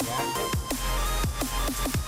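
Electronic dance music with a heavy bass and a steady beat.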